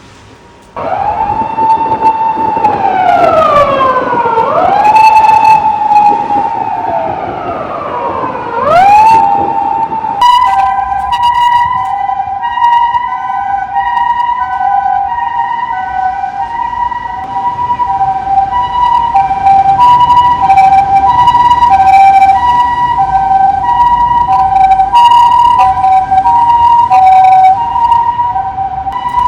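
Japanese emergency vehicle siren, starting abruptly: first a wail that sweeps down and back up twice, then, from about ten seconds in, a two-tone hi-lo alternating between a higher and a lower pitch, the 'pee-po' pattern of a Japanese ambulance.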